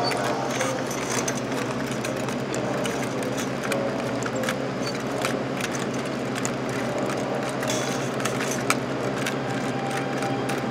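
Irregular mechanical clicking and rattling from the wire-and-lever mechanisms working the model cow orchestra's figures, over a steady low hum.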